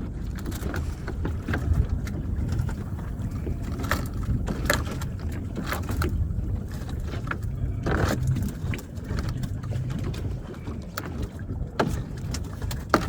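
Steady low rumble of a small fishing boat underway, with scattered knocks and clatters on board.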